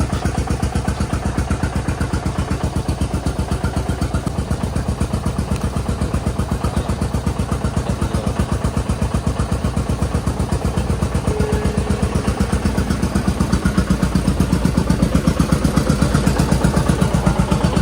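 New Holland 3630 tractor's diesel engine running with a steady low throb, growing a little louder near the end.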